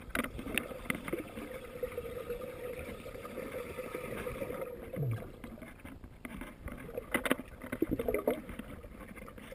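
Muffled underwater sound of a diver breathing straight from a scuba tank valve with his hand cupped over it, air gurgling and bubbling out. A steady hum runs through the first four seconds or so, and sharp clicks and knocks come after about seven seconds.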